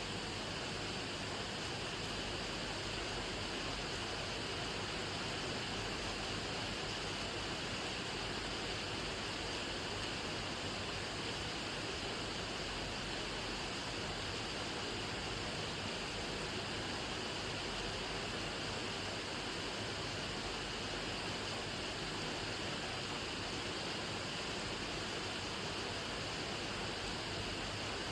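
Steady rain falling: a dense, even hiss of drops with no breaks or single strikes standing out.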